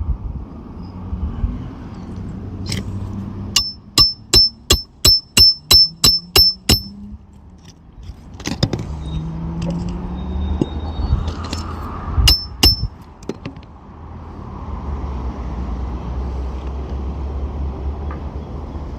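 Hammer blows on a roof snake nailing tool, driving roofing nails under a lifted asphalt shingle: a single blow, then a quick run of about ten blows, about three a second, each with a short metallic ring, then a few more single blows.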